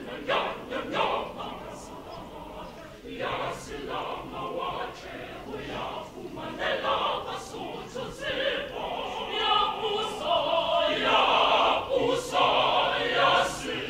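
Mixed choir of men's and women's voices singing together, building louder over the second half.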